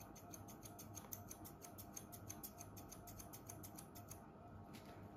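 Hair-cutting scissors point-cutting into a held section of a mannequin's long hair: a faint, rapid run of quick snips, about seven a second, that stops about four seconds in.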